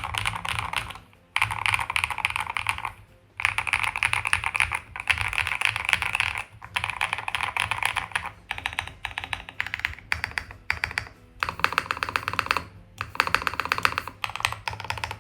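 Fast typing on a stock KiiBOOM Phantom 81 v4 mechanical keyboard with KiiBOOM Crystal linear switches and ABS keycaps: runs of rapid keystrokes broken by several brief pauses.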